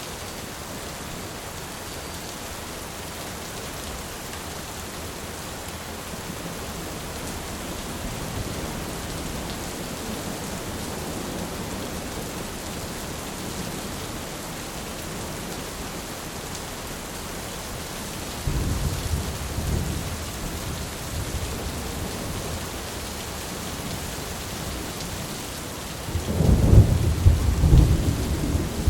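Thunderstorm: steady rain falling, with rolling thunder. A low rumble rolls in about two-thirds of the way through, and a louder, longer peal of thunder comes near the end.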